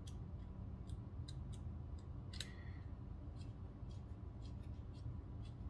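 Light scattered clicks and ticks of a small screwdriver driving screws into the handle of a Benchmade Mini-Bugout folding knife, with one sharper metallic click about two and a half seconds in, over a low steady hum.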